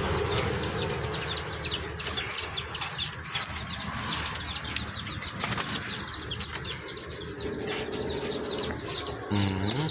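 Pigeons and doves flapping their wings in a pen, with rapid high, falling chirps from small birds several times a second throughout.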